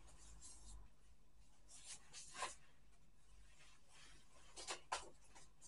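Near silence: room tone, with a few faint, brief noises about two seconds in and again near the end.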